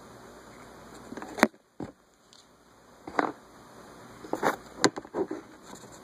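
Handling noises from clipping alligator-clip test leads onto a fan control's wires: scattered sharp clicks and short rustles, the sharpest click about a second and a half in and a cluster of them in the second half.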